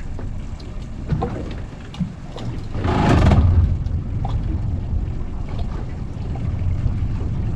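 Boat under way on open water: a low steady rumble of its motor under a rush of wind on the microphone, with a louder gust of noise about three seconds in.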